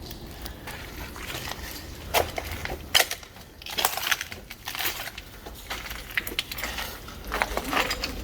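Footsteps crunching over loose debris on a brick floor: irregular crunches and sharp clicks, the loudest about two and three seconds in.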